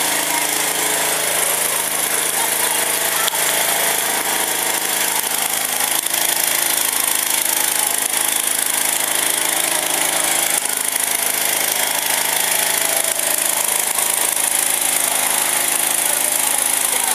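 Fire truck engine running steadily to drive its water pump: a loud, even mechanical noise with a strong hiss. Faint voices of onlookers are underneath.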